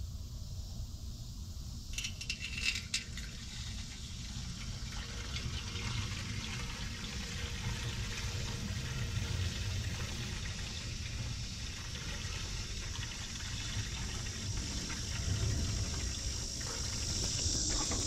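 Coolant pouring from a plastic jug into a truck radiator's filler neck, a steady liquid stream that grows louder toward the end as the radiator fills. A few clicks about two seconds in.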